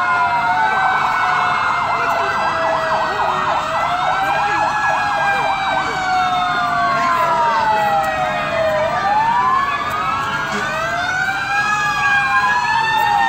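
Several fire-truck sirens wailing at once, their pitches rising and falling out of step with one another. From about one to six seconds in, one of them yelps rapidly.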